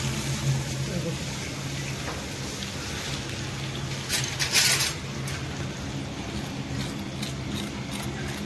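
Batter-coated chicken pieces deep-frying in hot oil, a steady sizzle, with a brief louder burst of noise about four seconds in.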